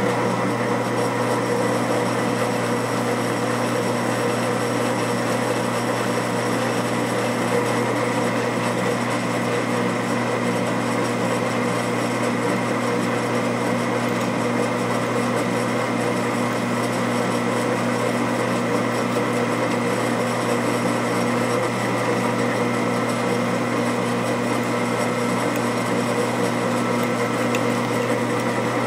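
Drill press running steadily, its twist bit cutting into a metal bearing flange to make the tap-drill hole for an 8-32 thread.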